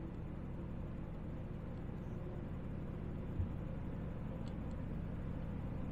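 Quiet, steady low background rumble of room tone, with one faint knock about halfway through.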